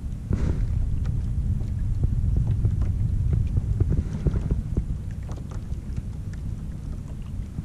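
Wind rumbling on the microphone aboard a plastic fishing kayak, with scattered light ticks and taps of water lapping against the hull.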